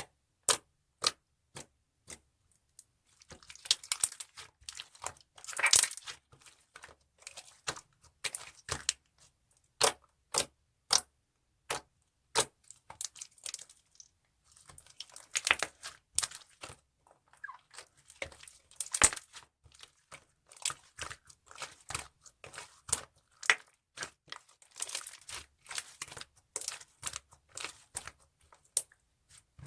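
Hands playing with a mixed slime, giving many sharp pops and clicks with stretches of sticky, crackling sounds in between.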